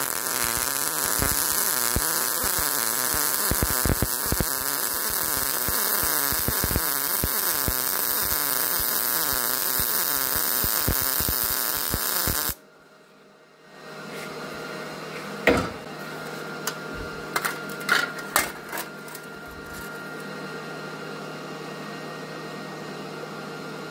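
Miller 211 MIG welder arc laying a bead on 18-gauge steel sheet at the chart's recommended setting of voltage 5 and wire feed 40, a dense, steady crackle that stops abruptly about twelve seconds in. After it, a much quieter steady background with a few sharp clicks.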